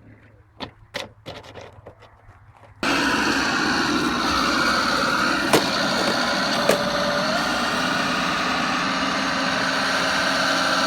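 A few sharp clicks and knocks, then about three seconds in the steady whirr of a radio-controlled model vehicle's small motor and drivetrain starts abruptly and runs on, with two sharp clicks a second apart in the middle.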